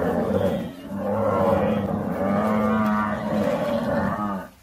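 Buffalo bellowing: long, low, wavering calls, one after another, broken by a short pause about a second in.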